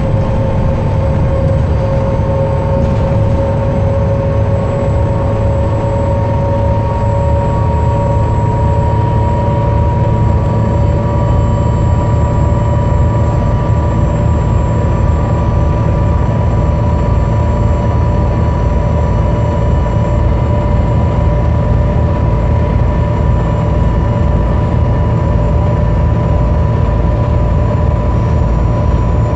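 Dennis Trident double-decker bus with a Voith automatic gearbox, heard from inside on the upper deck while under way: a steady low engine drone with a drivetrain whine that rises slowly in pitch as the bus gathers speed.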